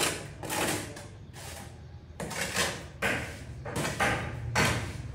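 Steel trowel scraping and scooping through a bed of damp sand-cement mortar in a series of short strokes, a little under a second apart.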